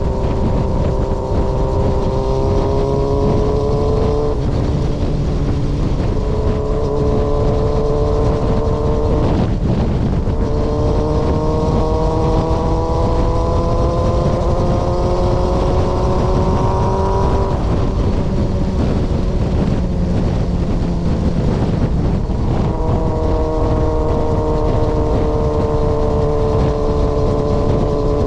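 Yamaha XJR400's inline-four running through a straight-pipe exhaust on a ride, revs climbing steadily and breaking for gear changes about four and nine seconds in, then dropping away near eighteen seconds before settling into a slowly falling cruise. Wind rumble runs underneath.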